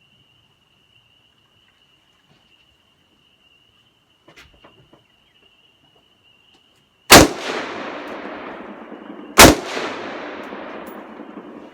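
Ruger AR-15 rifle fired twice, semi-automatic, two single shots a little over two seconds apart, each followed by a long echo dying away. Insects chirp steadily underneath.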